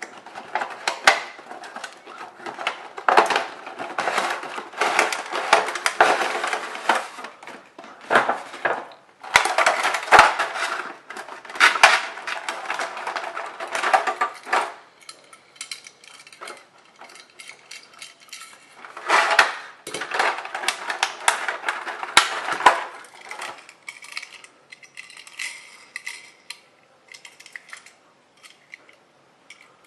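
Toy cars and trucks clattering and rattling as they are handled and moved, in dense irregular runs of clicks and knocks. The clatter thins to sparse ticks in the last few seconds.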